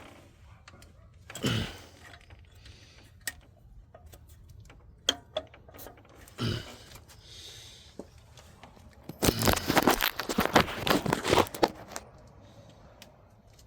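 Hand work on a Chevy V8's front end: metal parts and tools scraping and clinking as the unbolted oil pump is worked loose. Scattered single clicks and two short scrapes, then a dense run of clattering and rattling from about 9 to 12 seconds in, the loudest part.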